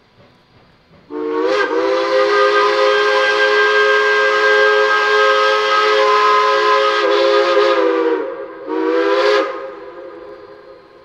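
Steam whistles on Shay geared steam locomotives sounding a chord of several tones: one long blast of about seven seconds, then a short blast, followed by steam hiss dying away.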